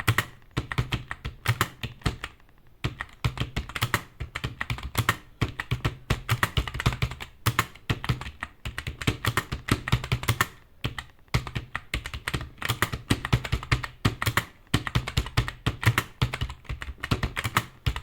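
Fast typing on a keyboard during a typing-speed practice run: a rapid, continuous stream of key clicks broken by short pauses every few seconds.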